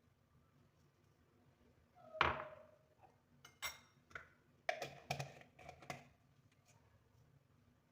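Kitchenware being handled: a handful of sharp knocks and clinks, the first and loudest about two seconds in with a brief ring, then several lighter ones over the next few seconds.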